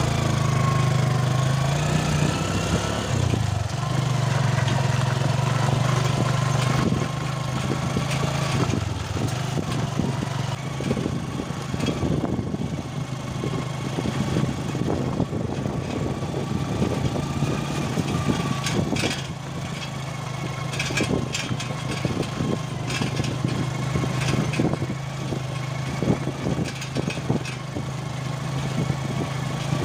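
Small vehicle engine running steadily under way, with rattles and knocks from the body as it travels over a rough gravel road.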